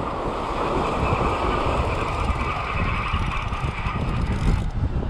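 Spinning fishing reel cranked steadily, its gears whirring as line is wound in on a hooked fish; the whirr fades out just before the end. Wind rumbles on the microphone underneath.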